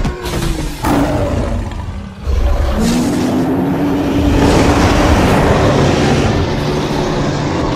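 Ape sound effect: loud, rough roaring calls, with one long held call starting about two seconds in.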